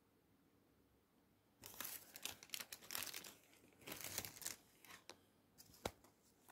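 Crinkly foil food wrapper crackling and rustling as a hand digs into the rice inside it: dense crackling starting about a second and a half in and lasting around three seconds, then a few separate sharp crackles.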